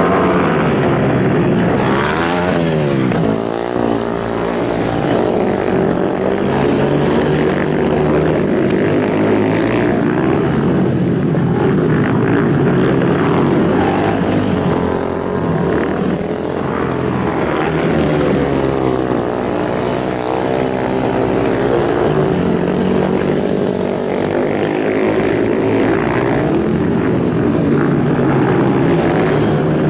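Several superbike motorcycle engines running at high revs together, a dense steady engine noise whose pitches glide up and down as bikes go past, most clearly about three seconds in and again around eighteen seconds.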